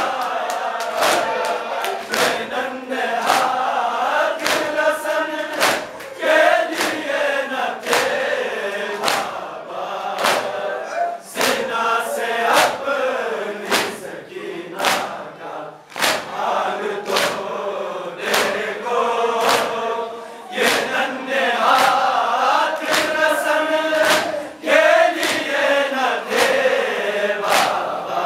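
A crowd of men chanting a noha (Muharram lament) in unison behind lead reciters, with the slaps of matam, palms striking chests, in a steady rhythm.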